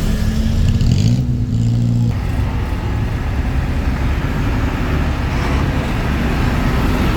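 A tour bus's diesel engine running, a low engine note that swells for about a second near the start, then goes on as a steadier low noise.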